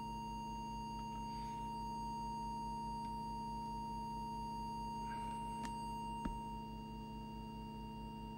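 Steady 1 kHz audio test tone, as used for setting a CB transmitter's FM deviation, held at one pitch over a low buzzing mains hum. A couple of faint clicks come about six seconds in, and the level drops slightly after them.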